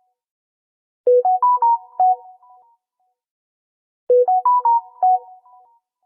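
Samsung phone notification tone, played twice about three seconds apart. Each time it is a quick run of about five pitched notes that climbs and then drops back, ending in a short fading tail.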